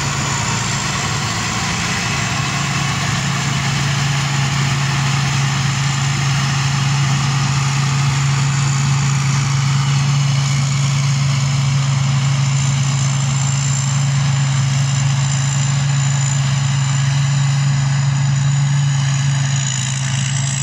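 Tracked rice combine harvester running steadily while it harvests: a loud, even engine drone with a thin high whine from the machinery over it.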